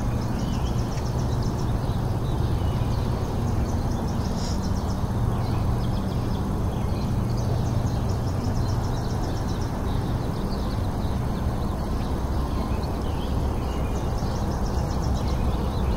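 Steady low background rumble, with short runs of high, rapid chirps recurring throughout.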